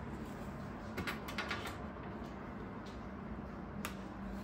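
Unpacking noise from hands working at a doll's boxed outfit and packaging: a quick cluster of small clicks and rustles about a second in, and one more sharp click near the end, over a faint steady hum.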